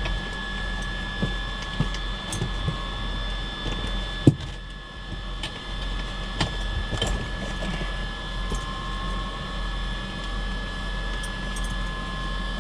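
Steady high-pitched electrical whine from the Cessna 340's cockpit instruments and avionics with the master switch on, over a low hum, with scattered clicks and a sharp knock about four seconds in.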